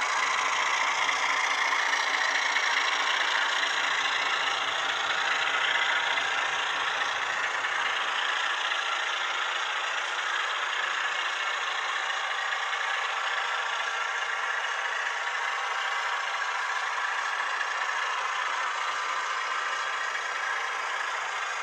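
HO scale model freight train rolling along the track: a steady whirring rattle of small metal wheels on rails, easing off slightly toward the end as the caboose passes.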